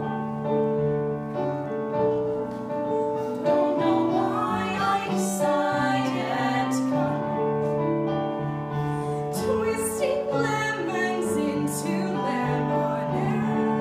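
Piano accompaniment playing held chords under a woman singing a musical-theatre song.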